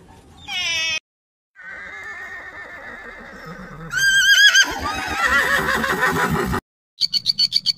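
Horse whinnying: a loud quavering call about halfway through, trailing into a rougher, noisier stretch. Just before it, near the start, a seal pup gives a short cry, and a rapid even pulsing begins right at the end.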